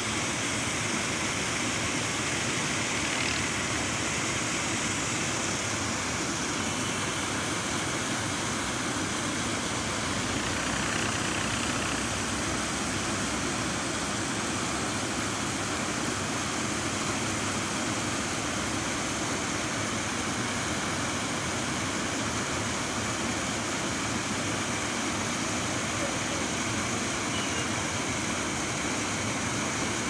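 Water pouring over a low concrete weir, a steady, even rushing.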